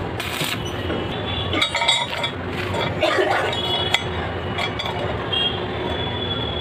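A brief hiss of stick welding at the start, then sharp metallic clinks in short clusters as the rebar clamp frame and its threaded steel rod are handled on a steel plate.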